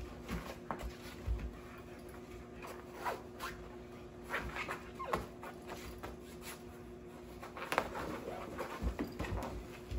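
Husky and sheprador puppy scuffling and tugging at a fabric pop-up tent: rustling, flapping fabric and paws scrabbling, with a few short dog vocalizations.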